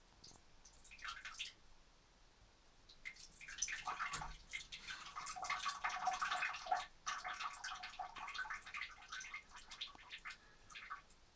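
A cat urinating into the water of a toilet bowl: a brief trickle about a second in, then a longer trickling stream from about three seconds in that tails off near the end.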